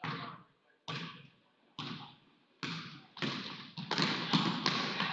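A basketball bounced on a hardwood gym floor in a steady rhythm before a free throw, about four single bounces just under a second apart, each echoing through the hall. In the last two seconds, quicker knocks and general gym noise crowd in.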